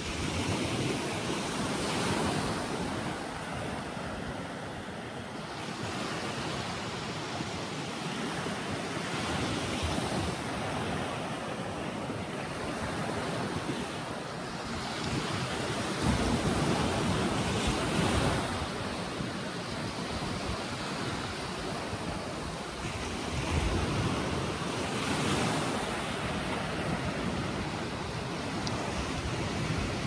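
Small sea waves breaking and washing up a sandy beach in a steady wash that swells and eases as each wave comes in.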